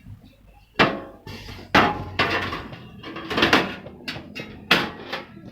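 Metal parts of a burger griddle with deep fryer being handled and set down: about six sharp clanks and knocks over a few seconds, each with a short ring.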